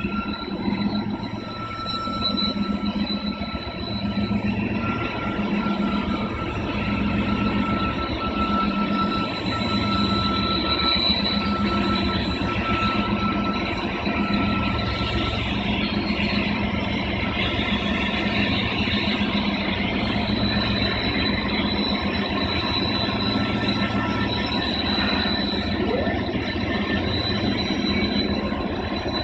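BNSF diesel-electric freight locomotives running under load as they haul an empty grain train up the grade, a steady low drone with a slow pulse. High, thin wheel-squeal tones from the cars on the curve come and go over it.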